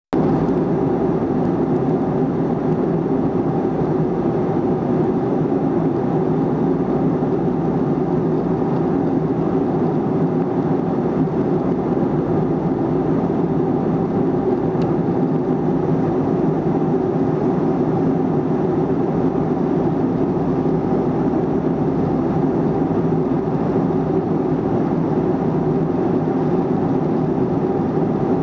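Steady cabin noise of a jet airliner flying above the clouds: engine and airflow noise heard from a window seat, even throughout.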